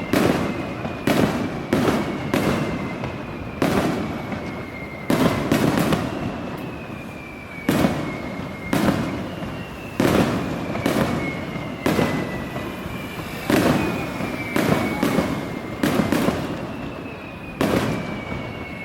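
Aerial fireworks bursting in a steady run of loud bangs every one to two seconds, each trailing off in a rumbling echo. High whistles sliding slightly downward in pitch recur between the bangs.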